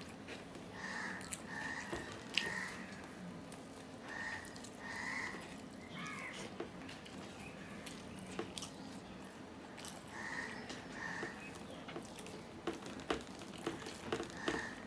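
Fingers working rice and mashed hilsa fish on a steel plate, with small clicks and soft chewing. A bird calls in short pairs several times, about a second in, near four seconds, near ten seconds and at the end.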